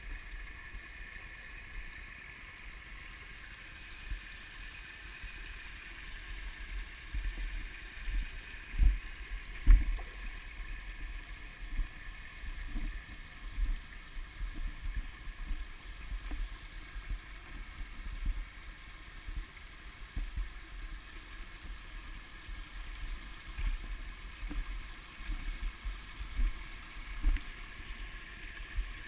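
Shallow stream trickling and burbling steadily over rocks and riffles, with irregular low thumps on the microphone throughout, the two strongest about nine and ten seconds in.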